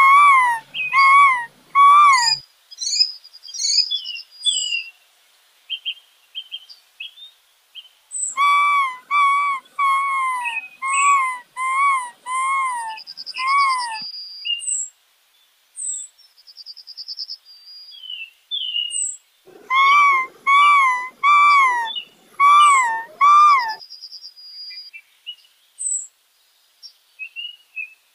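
Eastern gray squirrel calling in bursts of repeated notes, about two a second, each note rising and falling in pitch. There are three bursts: one ending about two seconds in, a longer one from about 8 to 14 seconds, and another from about 19 to 24 seconds. Small birds chirp and trill between the bursts.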